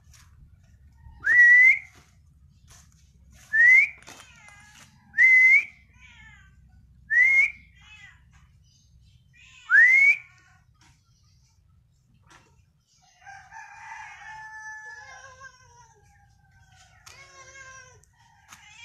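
A person whistling to call cats: five short, loud whistles, each rising in pitch, spaced a second or two apart. A fainter rooster crow follows a few seconds later.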